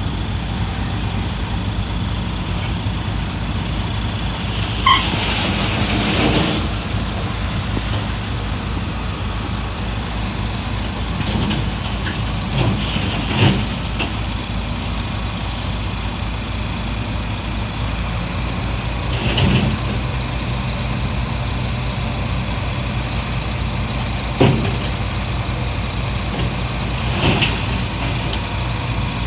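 Heavy diesel earthmoving machinery running steadily, with short clanks and squeals breaking in now and then, the loudest about five seconds in and again about 24 seconds in.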